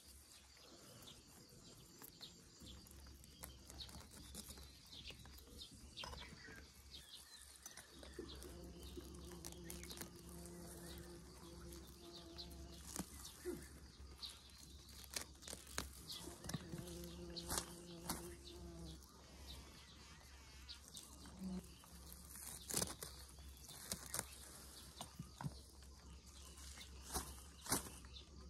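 Chive stalks being cut and pulled by hand with a small knife: quiet snips, rustling leaves and short sharp clicks, coming more often in the second half. Twice a low held tone sounds for two or three seconds over a faint steady rumble.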